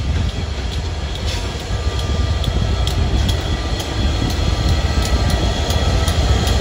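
Class 67 diesel locomotive passing close by with a train of coaches: a deep engine rumble with regular wheel clicks over the rails, about two a second, growing louder near the end as the locomotive draws level.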